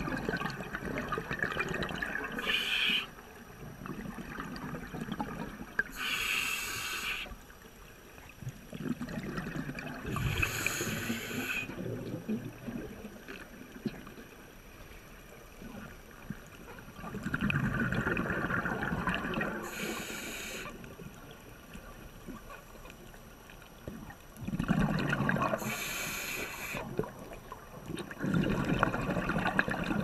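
Scuba breathing through a demand regulator heard underwater: slow repeated breaths, each exhalation a short burst of bubbling and hiss, about five times with gaps of several seconds between them.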